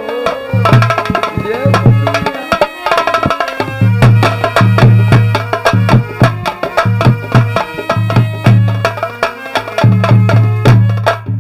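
Nautanki stage music: rapid hand-drum strokes and deep, pitched bass drum notes under a steady melodic line.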